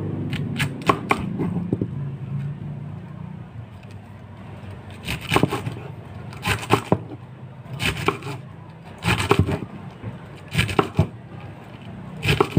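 Serrated knife cutting through a raw cabbage head onto a wooden chopping block, in short bursts of several crunchy strokes. After a quieter stretch, the bursts come about every second and a half.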